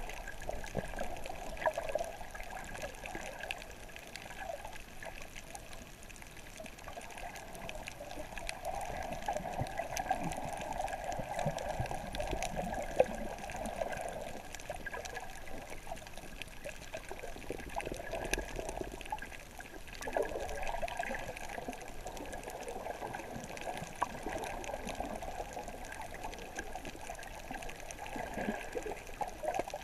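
Muffled water sloshing and gurgling around an underwater camera as it is swum slowly along below the surface, rising and falling in waves, with scattered faint clicks and one sharper tick about 13 seconds in.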